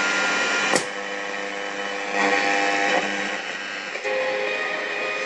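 VEF Spidola 230-1 transistor radio being tuned across a band: static hiss with steady whistling tones that shift as the dial moves between stations. There is a sharp click under a second in.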